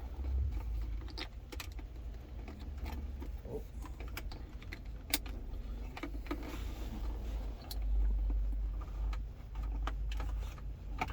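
Scattered light clicks and rattles of hands handling and plugging in a car-audio bass knob and its cable, over a low rumble.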